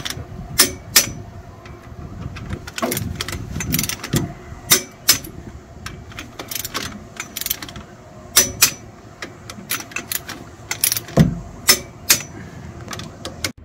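Torque wrench tightening the rear hub nuts of a Ford Transit in a star pattern: a run of sharp metallic clicks and clinks of the wrench and socket on the nuts, with a heavier knock about eleven seconds in.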